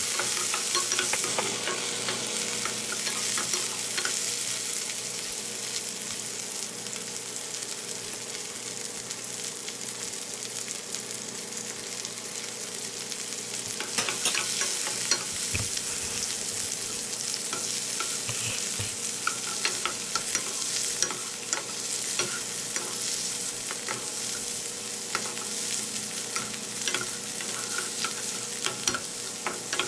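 Chicken pieces going into hot oil in a non-stick wok, sizzling loudest about a second in, then a steady frying sizzle under the repeated scraping and tapping of a wooden spatula stirring the chicken, onion and peppers.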